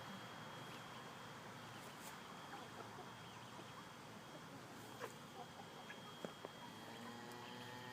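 Faint farmyard sounds of a mother hen with her chicks: a few soft clicks and scratches, then a low, drawn-out hen call in the last second.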